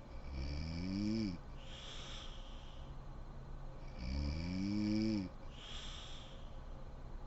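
A sleeping woman snoring: two snores on the in-breath, each about a second long, rising then falling in pitch, each followed by a breathy out-breath, one cycle every four seconds or so.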